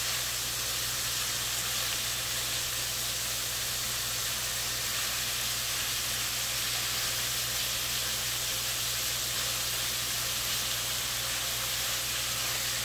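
Thinly sliced beef steadily sizzling as it fries in a frying pan.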